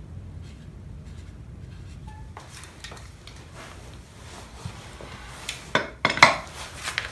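Metal tools and parts clinking and clattering as they are handled and set down on a work surface, with scattered light clicks building to a cluster of louder metallic clanks about six seconds in.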